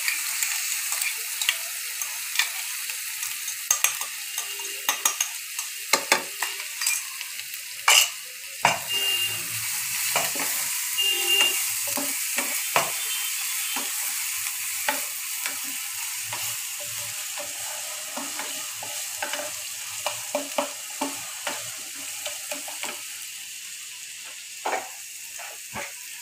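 Ground green chillies, mustard seeds, cumin, curry leaves and ginger-garlic paste sizzling in hot oil in a nonstick frying pan: the tempering for a spiced potato filling. A wooden spatula stirs it, giving frequent scraping clicks against the pan. The sizzle eases off near the end.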